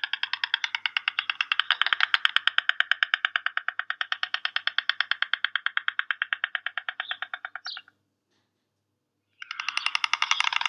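White stork clattering its bill: a fast, even rattle of wooden-sounding clacks, about ten a second. It runs for some eight seconds, stops briefly, then starts again near the end.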